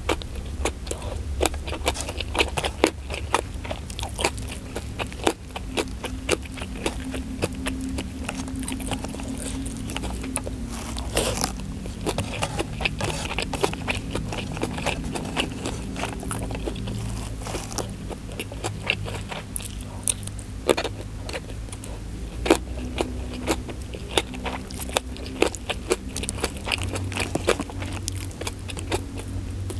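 Close-miked eating sounds: chewing a mouthful of rice, omelette and sambal matah, with many sharp wet mouth clicks and smacks throughout. Fingers gather rice across the plate with a light scraping, over a low steady hum.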